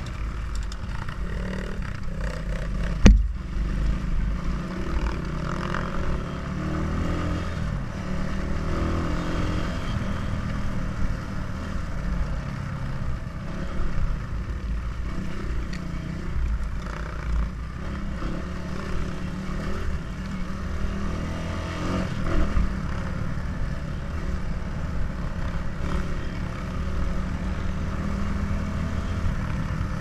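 Dirt bike running under way over a rutted dirt track, its engine and chassis rattling over bumps, with one sharp knock about three seconds in.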